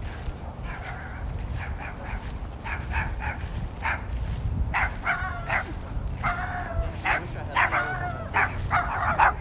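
Small dog barking repeatedly behind a chain-link fence in short, high yaps that come louder and more often in the second half.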